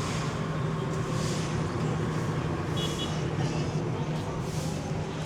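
City street traffic with a steady low engine hum from idling or slow-moving motor vehicles. Soft hissing whooshes pass every second or two, and a brief high beep sounds about three seconds in.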